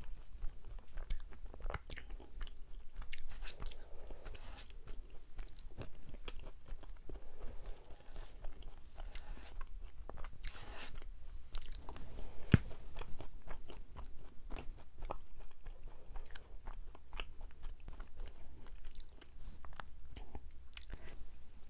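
Close-miked chewing and biting of a soft mugwort rice cake (ssuk-baekseolgi), full of quick, irregular mouth clicks and smacks, with one sharper click about halfway through.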